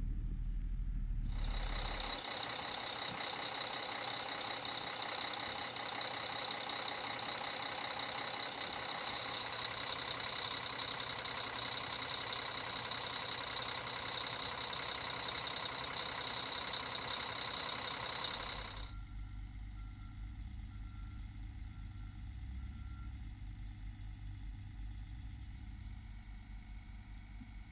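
Mercedes MBE-4000 inline-six diesel of a 2010 Western Star 4900SA crane truck idling. At first it is a low rumble. From about a second in it becomes a loud, steady, high-pitched hiss and whine, heard close up in the open engine bay. About 19 seconds in it drops back to the low idling rumble, and just after that comes a short series of beeps.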